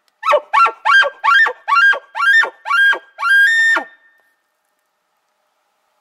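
Elk bugle call blown through a corrugated bugle tube: a run of eight quick chuckles, each a short note that rises and then drops, over about three and a half seconds.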